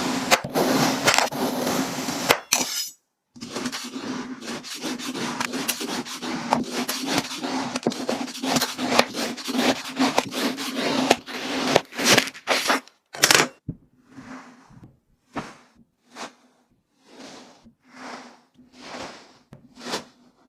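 Slime being worked by hand: a dense run of crackling and clicking, with a short break about three seconds in, thinning after about fourteen seconds into separate crackly bursts about once a second.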